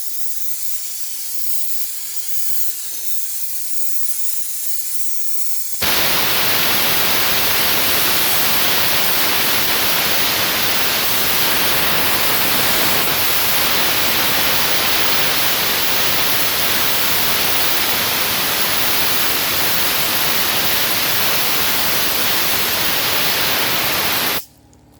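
Compressed air from the compressor, fed through a garden hose used as an airline, blasting out of the blow nozzle into a vacuum filter to clean it. A softer hiss gives way about six seconds in to a loud, steady full blast, which cuts off suddenly near the end.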